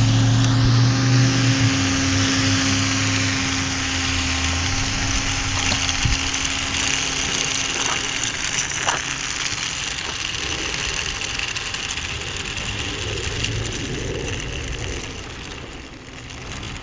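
A passing car's engine fades away over the first few seconds. Then the small battery-powered electric fan of a homemade fan-driven toy car runs steadily with a faint high whine, its battery running low.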